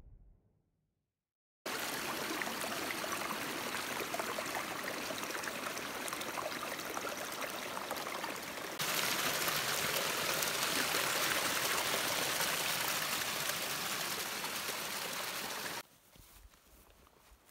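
Small forest stream trickling through grass and fallen branches: a steady running-water sound that starts suddenly a couple of seconds in, gets louder about halfway through, and cuts off near the end.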